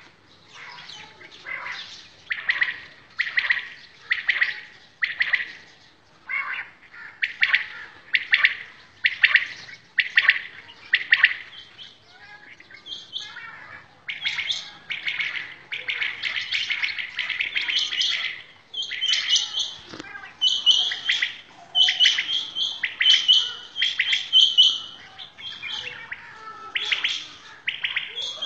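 Many caged quails calling together: runs of short, sharp chirping calls repeated over and over. The calling grows denser and louder about halfway through.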